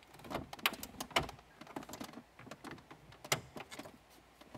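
Plastic dash trim bezel being pried off: a scatter of small clicks and snaps from the plastic and its clips, the sharpest about a second in and again after about three seconds.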